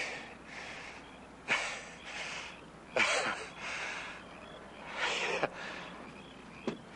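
A man laughing breathily, in several short spells with pauses between.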